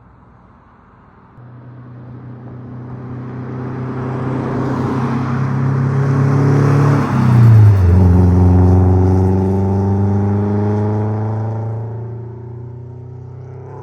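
A Mazda Miata's 1.8-litre four-cylinder on an unequal-length header drives by, its exhaust giving a Subaru-like boxer rumble. It grows louder as the car approaches, drops in pitch as it passes about seven and a half seconds in, then fades away.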